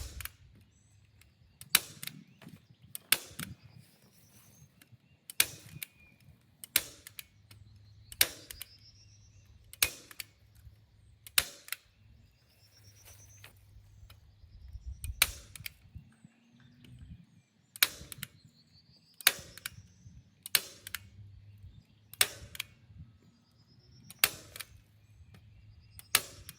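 Hand staple gun firing staples through plastic sheeting into a wooden frame: a sharp snap about every one and a half seconds, some seventeen in a row.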